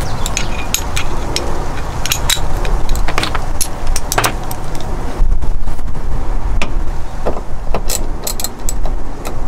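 Hand ratchet clicking in short, irregular runs as it is fitted with a Torx socket and worked on a bolt, over a low rumble.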